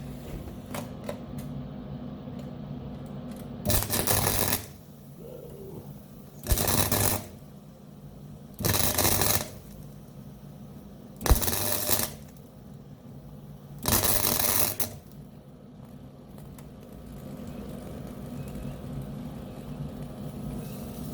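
MIG welder striking five short arcs, each about a second long and a couple of seconds apart, as it lays plug welds on steel. The welds crackle with spatter, which the welder wonders is down to too slow a wire speed. A steady low hum sits under them.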